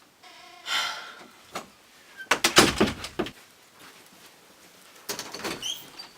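A short scrape in the first second, then a loud cluster of knocks and rattles about two seconds in, with a few more knocks near the end.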